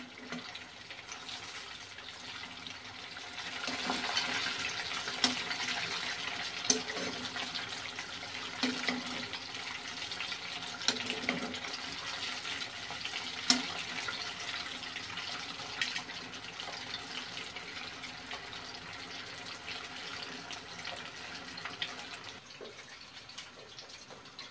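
Breaded chicken drumsticks deep-frying in oil in a pot: a steady hiss and crackle that swells about three seconds in, with a few sharp clicks of tongs turning the pieces.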